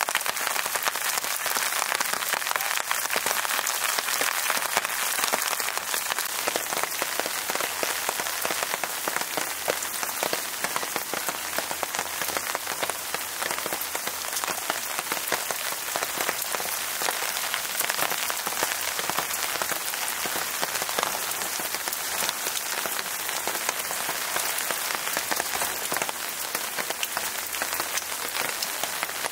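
Steady rain falling, with many individual drops heard as fine ticks.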